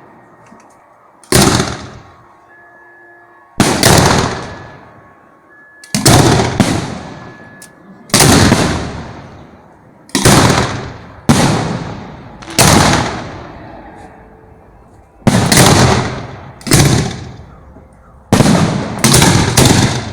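Firework shells bursting at close range: about a dozen loud bangs at irregular gaps of one to three seconds, each trailing off over a second or so, with three bursts in quick succession near the end.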